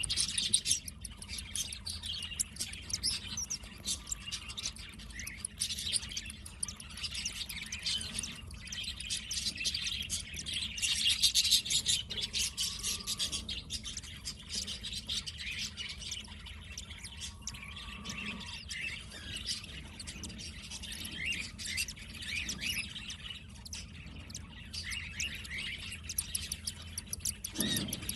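Newly hatched cockatiel chicks giving rapid, high-pitched begging chirps as their mother feeds them, loudest about eleven seconds in, over a faint low steady hum.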